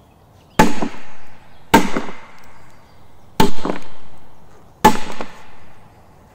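A multi-bang firecracker going off: four sharp, loud bangs at uneven intervals of roughly one to one and a half seconds, each followed by a short echo.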